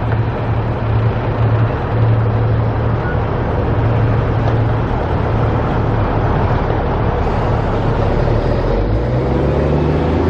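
Road traffic: a large motor vehicle's engine runs close by with a steady low hum over continuous traffic noise, its engine note changing pitch near the end.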